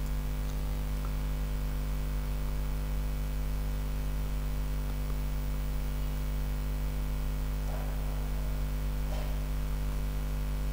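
Steady electrical mains hum on the recording, unchanging throughout, with two faint brief sounds near the end.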